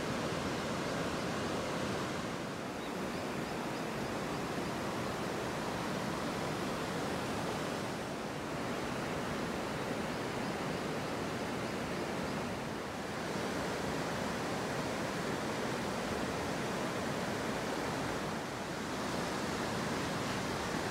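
Steady rushing of water and rain: an even hiss of river flow and falling rain, dipping slightly a few times.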